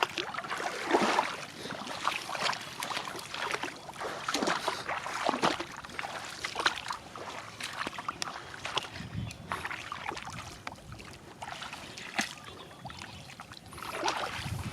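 Water splashing and sloshing in a string of irregular strokes.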